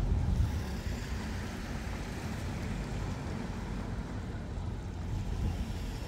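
Small sea waves washing against shoreline rocks, under a steady low rumble of wind on the microphone.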